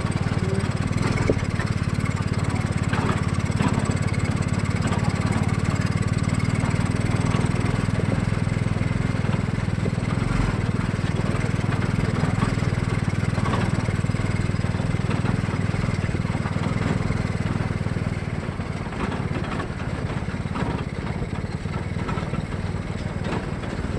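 Homemade mini jeep's Honda Supra X 125 cc single-cylinder four-stroke motorcycle engine running steadily under way, dropping a little in level for the last few seconds.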